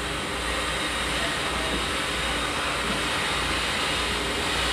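Vehicle engine running steadily, a constant low rumble with hiss, heard from inside the cab.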